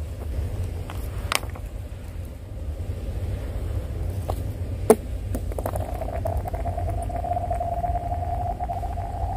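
A stone thrown onto thin river ice: sharp knocks as it strikes the ice about a second in and, louder, about five seconds in, then a steady ringing tone, rising slightly, as it skids and rolls across the ice sheet. A low rumble runs underneath.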